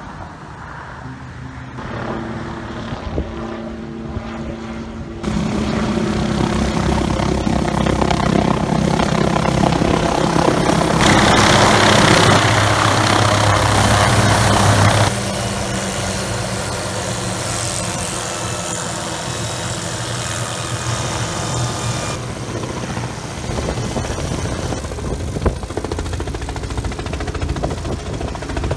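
Helicopters running close by: steady rotor and engine noise with a low hum of engine tones. It is quieter at first, jumps louder about five seconds in, and is loudest midway as one helicopter hovers near the ground.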